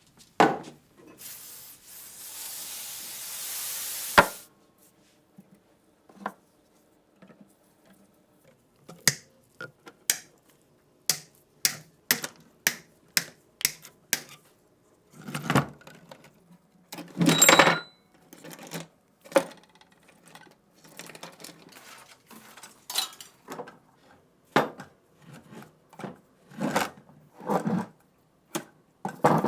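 Metal parts of an MG3 machine gun being handled during a strip-down: scattered clicks, knocks and clinks of metal on metal, with a louder clatter about two-thirds of the way through. Near the start a steady hiss lasts about three seconds and ends in a sharp click.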